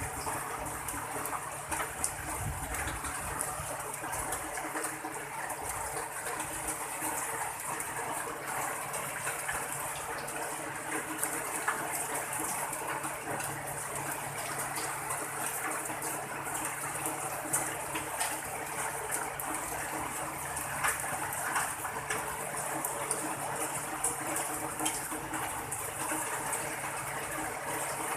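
Rain falling steadily: a constant hiss of water dotted with many small, sharp drop ticks. A faint low steady hum lies underneath.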